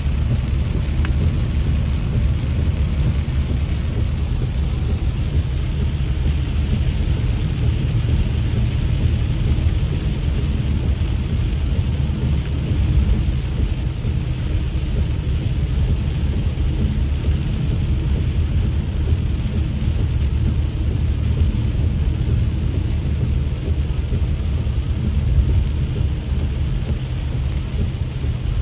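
A car driving on a wet road in the rain: a steady low rumble of road and engine noise with an even hiss of tyres and rain on wet pavement.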